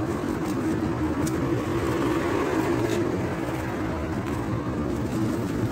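Steady motor-vehicle noise: a constant low hum with a wavering pitch under an even rushing sound, as from a car in motion.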